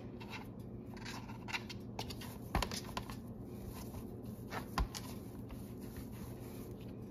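Hands gathering and pressing soft fresh chhena against a ceramic plate: faint scraping and rubbing, with two small knocks about two and a half and five seconds in, over a faint low hum.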